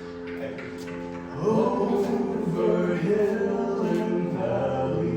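Live band music: sustained chords, joined by a louder melody line about a second and a half in.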